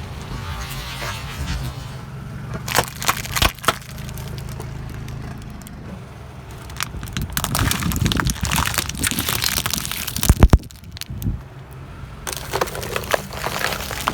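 A car tyre rolls over crunchy objects and crushes them: a few sharp cracks, then a longer spell of dense crunching with two loud snaps, and more crackling near the end, over the low hum of the car's engine running.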